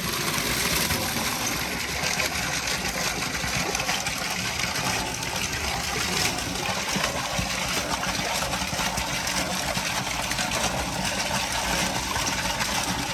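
Spring water rushing and splashing down in a steady, unbroken stream.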